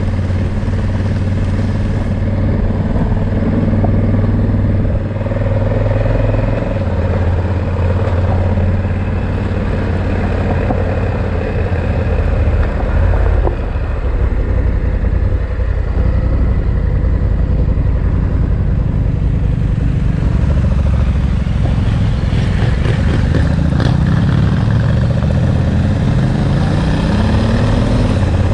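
Motorcycle engine running while riding. Its pitch changes in steps a few times, then rises steadily over the last several seconds as the bike picks up speed.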